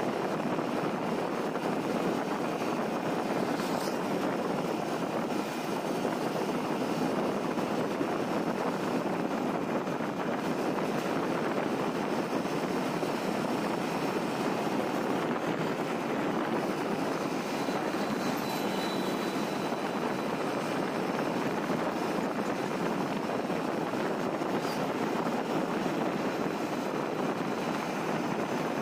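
Steady road and wind noise from a moving vehicle, an even rushing sound without change.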